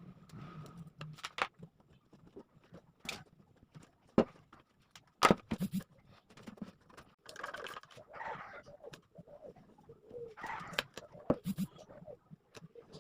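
Scattered sharp taps and knocks, with low cooing from a bird at times in the background.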